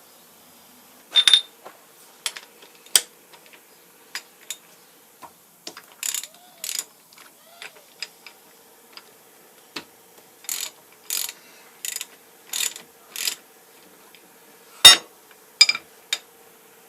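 Hand tools working on the metal parts of an old metal shaper's clapper box as it is taken apart: scattered metallic clicks and knocks, and a run of short, evenly spaced rasping strokes. A single sharp metal clank near the end is the loudest sound.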